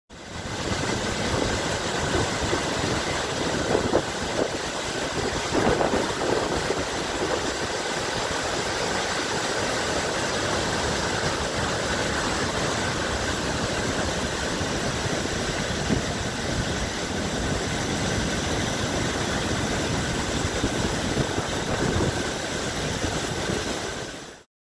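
The steady roar of the Doubs river in flood: white water crashing over a waterfall and through rapids, a dense rushing noise without pauses. It starts and stops abruptly.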